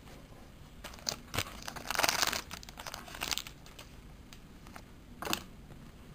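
Foil trading-card booster pack wrapper being torn open and crinkled, in several irregular rustling bursts, the loudest about two seconds in, with one last short crackle near the end.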